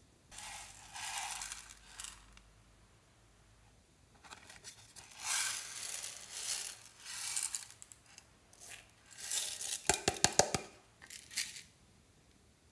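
Hands handling plastic slime containers: rustling and scraping of plastic in a few bursts, then a quick run of sharp crackling clicks about ten seconds in.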